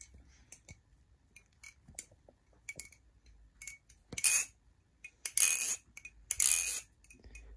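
Ex11 balisong with titanium handles being flipped: light metallic clicks at first, then from about four seconds in several louder rattling metallic clacks as the handles swing round and close.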